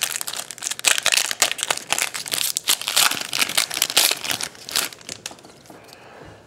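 Crinkling of a foil trading-card pack wrapper being handled and torn open; dense crackling for about four seconds that then dies away.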